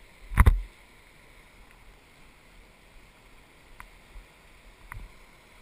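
River water rushing past an inflatable raft as a faint steady hiss, broken by a loud cluster of sharp knocks about half a second in and a few lighter knocks near the end.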